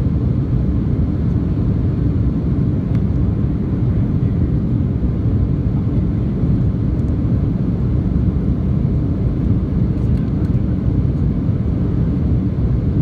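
Airliner cabin noise during the climb after takeoff: a steady, low rumble of engines and rushing air heard from inside the cabin, unchanging throughout.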